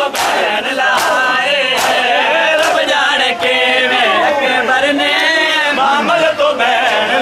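Crowd of men chanting a lament together while doing matam, bare hands slapping chests in unison about once every 0.8 s. The slaps stop about halfway and the chanting goes on.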